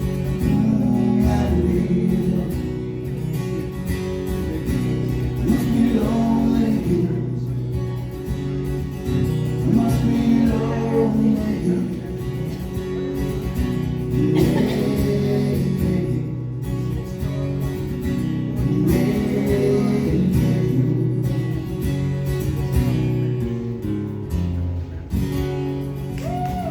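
Live band music: a rock song played with guitar to the fore, with some singing over sustained chords.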